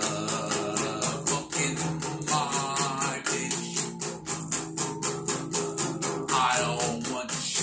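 A man singing while strumming an acoustic guitar with quick, even strokes, about five a second; the sung lines come about two seconds in and again near the end.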